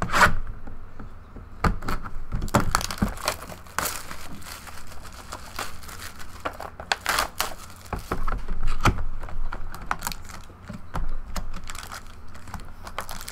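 Plastic shrink-wrap crinkling and tearing as it is stripped off a sealed box of trading cards, in a dense run of irregular crackles and sharp clicks, with the cardboard box being handled.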